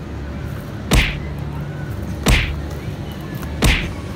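Three identical sharp cracks about 1.3 seconds apart, each a whip-like snap with a thud beneath it: an edited-in cartoon hit sound effect.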